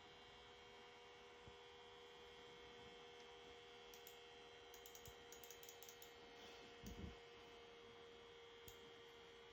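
Near silence: a faint, steady electrical hum with a few level tones, a run of faint quick clicks around the middle, and a soft low thump about seven seconds in.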